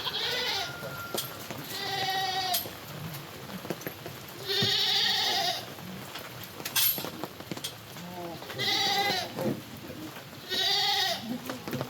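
Goats bleating: five loud, wavering bleats spread over the span.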